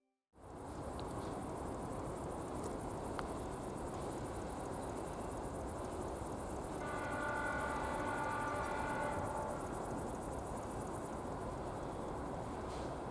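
Steady rumble and hiss of a railway line as a ChS7 electric locomotive hauling a passenger train approaches in the distance. A held, pitched tone sounds for about two and a half seconds near the middle.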